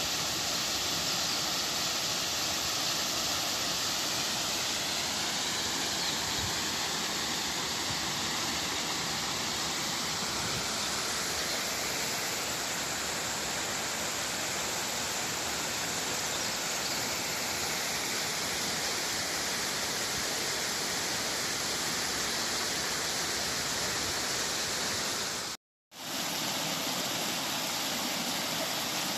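Steady rush of a mountain stream and waterfall pouring over rocks. It cuts out for a moment near the end, then resumes.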